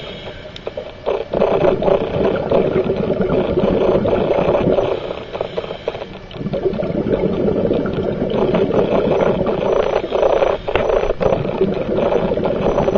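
Scuba diver's exhaled regulator bubbles rumbling and gurgling around the underwater camera, in long stretches broken by two quieter pauses, one at the start and one about five seconds in.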